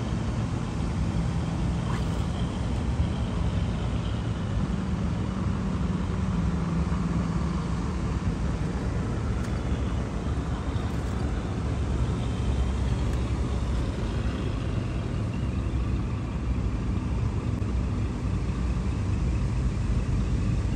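Electric motors and gear drives of 1/10-scale RC crawler trucks running steadily as they crawl over dirt, a continuous whir over a low rumble, with faint whining tones that drift in pitch.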